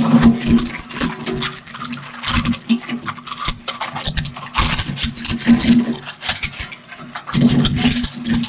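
Twin-shaft shredder's rotating cutter discs crunching and cracking hard plastic parts, plastic gears and a small circuit board, in irregular bursts of sharp cracks over the steady hum of the machine's drive.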